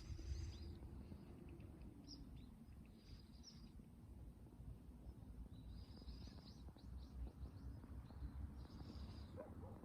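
Faint birds chirping, short high calls in a handful of brief clusters, over a low steady outdoor rumble.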